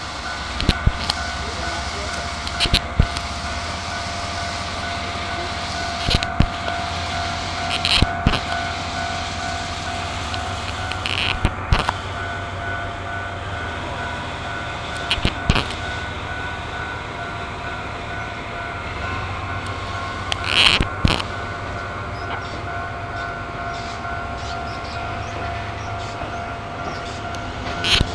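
A train rolling past at a level crossing: its wheels clack sharply over the rail joints at uneven intervals, some in quick pairs, over a steady low rumble. The crossing alarm's steady tone goes on throughout.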